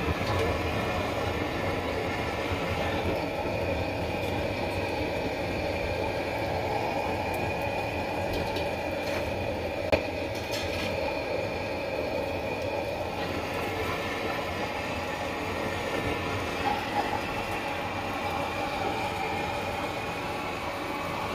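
Gas wok burner running at full heat under a new wok: a steady rushing noise with a faint whistle in it, as the wok is heated until its base glows and smokes to season it. One sharp knock about ten seconds in.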